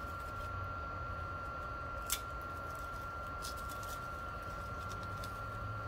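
BioLite CampStove 2's built-in fan running on its low setting: a steady hum and hiss with a thin, steady whine. There is one sharp click about two seconds in and a few faint ticks later, as the small wood fire inside is getting started.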